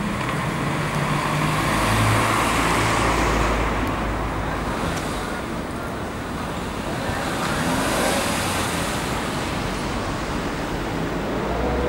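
Road traffic: cars passing, with a low engine hum underneath. It swells louder about two seconds in and again near eight seconds as vehicles go by.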